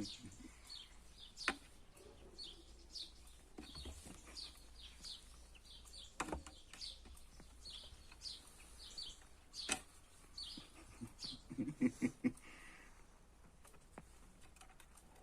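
Small birds chirping again and again, short falling chirps, with a few sharp clicks and a quick run of low notes about twelve seconds in.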